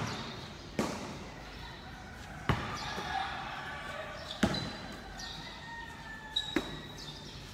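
Basketball bouncing on a concrete court: single sharp thuds roughly every two seconds, with the voices of players in the background.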